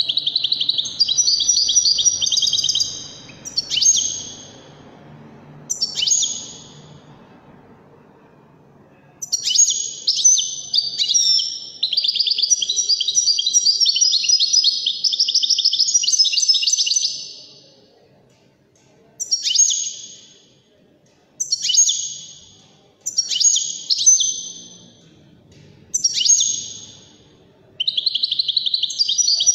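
European goldfinch singing in fast twittering, trilled phrases: a burst at the start, then a long unbroken run of song through the middle, then short separate phrases about every two seconds, breaking into continuous song again at the very end.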